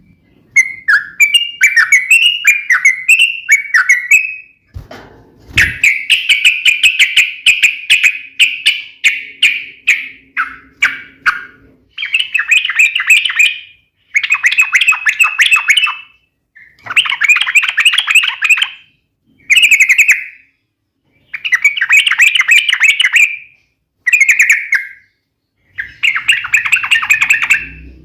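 Yellow-vented bulbul (trucukan) giving its sharp, rapid chattering fighting call, delivered in repeated bursts of one to four seconds with short pauses between them. A brief low thump sounds about five seconds in.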